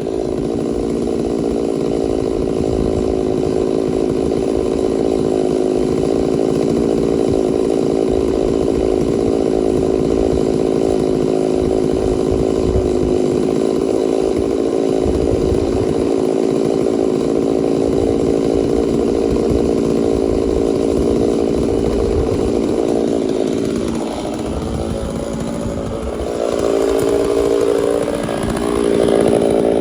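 Chainsaw running at full throttle under load, cutting lengthwise through a white oak log. Its engine note holds steady, sags and wavers near the end, then climbs again.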